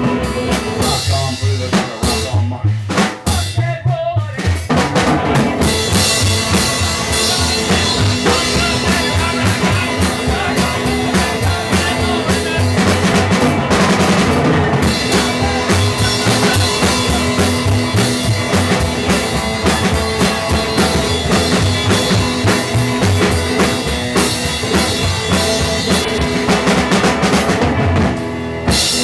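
Live band playing loudly, the drum kit to the fore with bass drum and snare keeping the beat. The playing thins out briefly about two to four seconds in, then the full band comes back.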